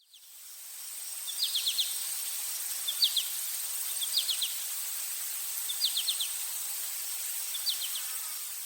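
A bird repeating a short call of three or four quick high notes about every one and a half to two seconds, over a steady hiss that fades in at the start.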